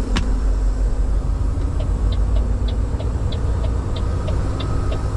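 Semi truck cab while driving: steady low rumble of the diesel engine and road. A single click comes just after the start, and from a couple of seconds in a quick regular ticking runs at about three ticks a second.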